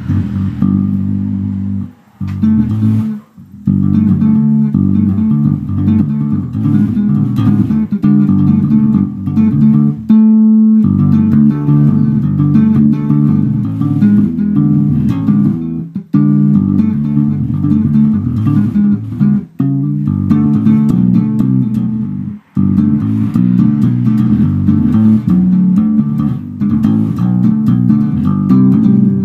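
Warwick electric bass guitar played in a funk style: a busy run of plucked notes with a few short breaks and a brief high ringing note about ten seconds in.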